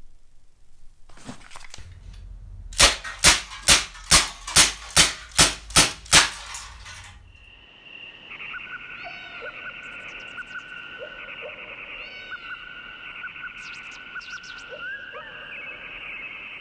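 Airsoft pistol, a KJ Works MK2 CO2 gun, firing nine quick shots, about two and a half a second. A few seconds later a sustained high tone with short chirping glides comes in.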